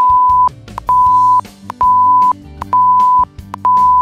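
An edited-in censor bleep: a steady high-pitched beep tone repeated in half-second pulses about once a second, five times, over quiet background music.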